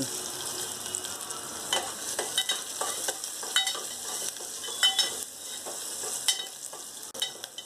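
Chopped onion and ginger sizzling in hot oil in a nonstick pot, stirred with a spoon that clicks and scrapes against the pot several times.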